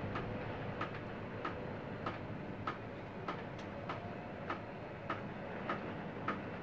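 Regular tapping from storm rain being forced through the roof, at a little under two taps a second, over a steady background hiss.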